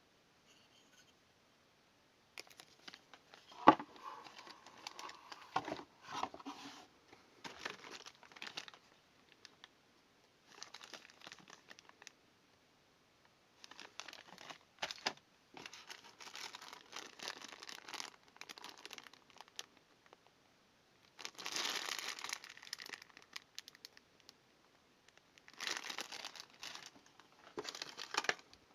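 Motherboard packaging being handled: crinkling, rustling plastic and paper wrapping in irregular bursts with short pauses, and one sharp click a few seconds in.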